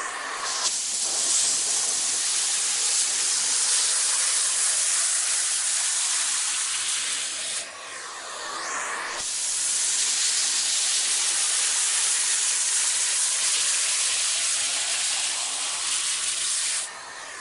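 Vacuum cleaner running with a steady, hissing rush of air. It dips briefly about eight seconds in, where the pitch of the rush shifts, and drops again near the end.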